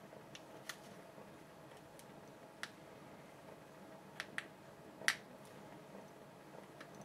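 A few faint, sharp clicks and taps, the loudest about five seconds in: small metal and plastic parts being handled as the old fuel filter and its locking pin are worked off the trimmer's fuel line.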